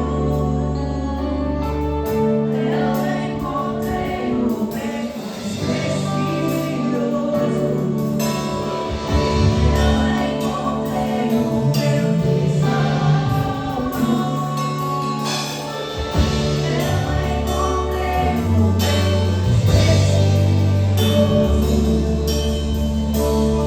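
Gospel worship song played by a church band: group singing over long held bass notes and drums.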